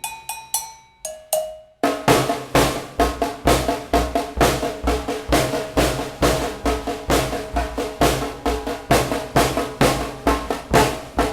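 Acoustic drum kit: a few sparse, ringing hits, then a steady groove of bass drum and snare from about two seconds in.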